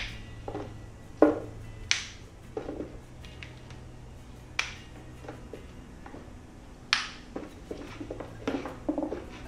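Raw carrots snapped by hand, about four sharp cracks a couple of seconds apart. Between and after them come duller knocks of the pieces dropping into a blender jar full of leafy greens.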